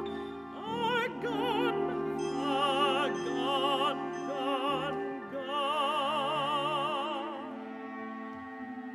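Mezzo-soprano singing a few phrases with wide vibrato over held chords from a chamber orchestra. The voice stops about seven seconds in, leaving the orchestra's sustained chord.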